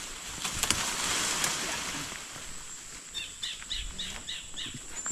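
Leaves and branches rustling with a few snaps as plants are pushed aside, then a bird calling a quick series of short high chirps, about three a second, in the second half.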